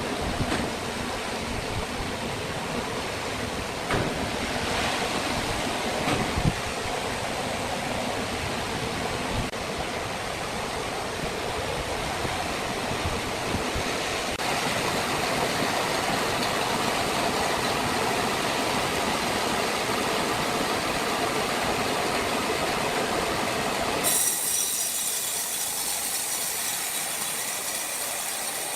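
Sawmill machinery running steadily, with a few sharp knocks in the first seven seconds. About 24 seconds in, the sound changes abruptly: the low rumble drops away, leaving a high hiss with steady high tones.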